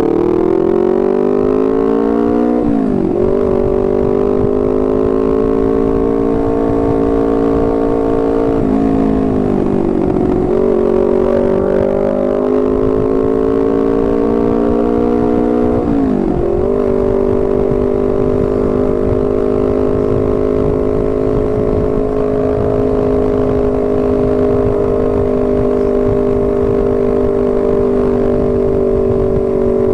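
Honda CBR250RR with an R9 GP racing exhaust, accelerating with its engine note climbing. It drops sharply at upshifts about 3 seconds in and again around 16 seconds, and dips once in between. It then holds a steady cruising note, with wind rush underneath.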